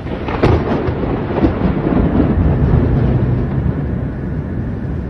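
Storm noise: wind and rain with a low rumble, with a few sharp crackles in the first second and a half.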